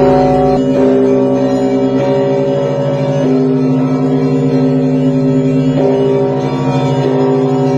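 Orthodox church bells ringing, a new stroke every second or two, the tones of several bells ringing on and overlapping.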